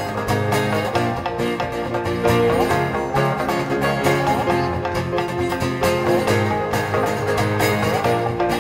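Live instrumental music: shamisen plucking notes over acoustic guitar and piano.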